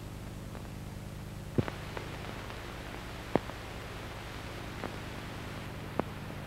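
Steady low electrical hum with a hiss that rises about a second and a half in, broken by five sharp, irregular clicks, the loudest as the hiss comes in and about three and a half seconds in.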